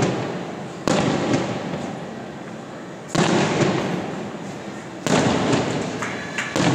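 Aerial firework shells bursting: three loud booms about two seconds apart, each trailing off in a long echo that dies away.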